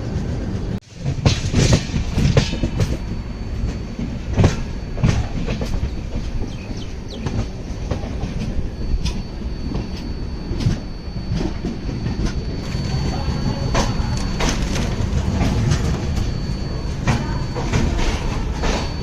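Passenger express train running on the track, with a steady rumble and irregular clicks and clatter of the wheels over rail joints. The sound cuts out sharply for a moment about a second in.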